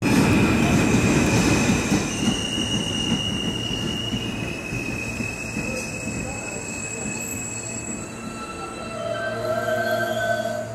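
An R68 subway train rolls along the track: the steel wheels rumble on the rails, loudest at first and slowly fading, under high, steady squealing tones that shift in pitch. A lower squeal swells about a second before the end.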